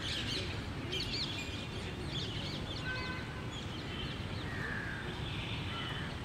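Outdoor ambience of birds chirping: many short, quick chirps, busiest in the first two seconds, with a few brief whistled notes, over a steady low background hum of noise.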